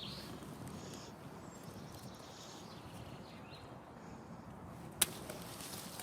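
Faint handling and rustling noise, with one sharp click about five seconds in.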